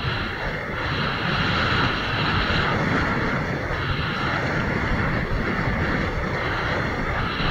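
Steady rush of wind buffeting an action camera's microphone, with water hissing and splashing as a kiteboard rides through whitewater.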